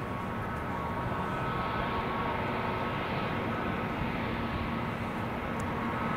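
Airbus A321neo jet engines at taxi idle, heard from a distance: a steady rushing hiss with a faint steady whine and a low hum, unchanging in level.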